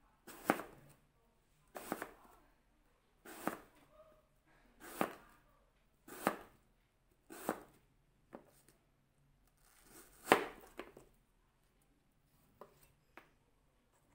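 Kitchen knife slicing through a raw apple half and striking the cutting board, a crisp cut about every second and a half, roughly seven in a row, the loudest about ten seconds in. Near the end only a couple of light taps are left as the slices are gathered.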